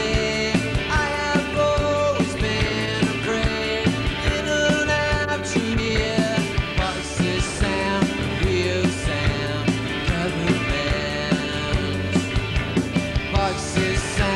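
Rock band playing live, with electric guitars, drums and a singer, heard from the audience.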